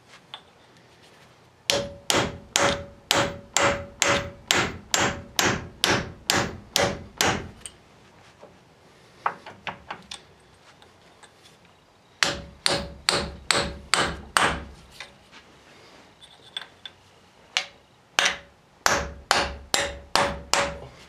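Hammer striking a steel chisel driven in behind a stuck front wheel hub on a 1994 Toyota 4Runner axle to wedge it off. The blows come in three runs of quick, ringing metal strikes, about three a second, with a few lighter taps between the first two runs.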